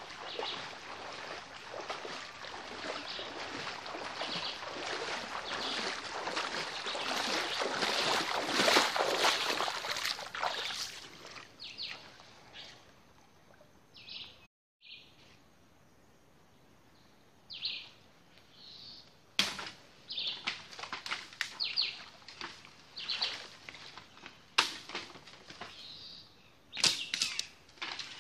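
Outdoor ambience with a bird repeating a short high call every second or two. Over the first half a dense rushing noise builds and then fades away. After a brief dropout, several sharp knocks come in the second half.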